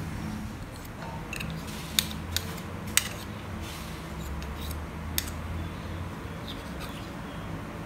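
Metal spoons clinking against each other and the bowl while scooping sticky dough into balls: a few sharp clinks two to three seconds in and one more about five seconds in, over a low steady hum.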